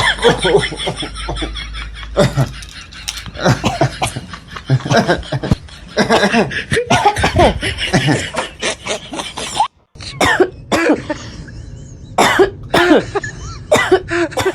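People coughing in quick, staged bursts strung together like a conversation, coughing in place of words, with some laughter mixed in. The coughing breaks off for a split second about ten seconds in.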